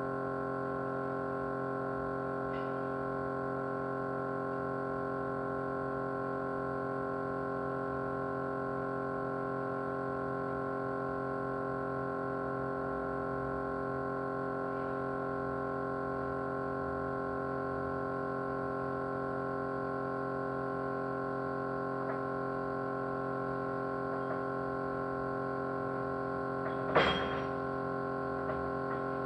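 Small electric motor running with a steady vibrating hum at an unchanging pitch. A sharp click about 27 seconds in stands out as the loudest sound, with a few faint ticks here and there.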